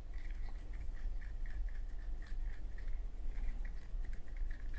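Fuel-soaked cotton swab scrubbing inside the metal chimney of a Zippo lighter: quick, repeated scratchy strokes, about four or five a second, over a steady low hum.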